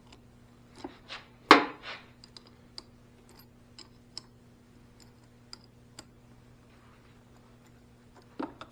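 Scattered small clicks and taps of metal battery cable terminals and wire being handled, with one louder clatter about a second and a half in and another near the end, over a faint steady electrical hum.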